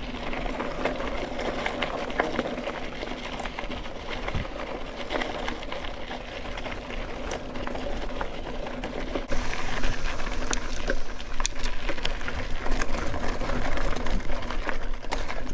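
Mountain bike rolling over a dirt singletrack: tyre noise with a rapid mechanical rattle and many small clicks and knocks from the bike. About nine seconds in it gets louder, with more clicks and knocks.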